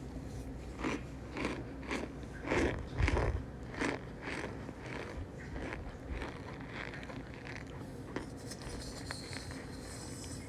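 Packed cornstarch crunching and squeaking in a steady run of short crunches, about two a second, loudest a few seconds in and fading after about seven seconds.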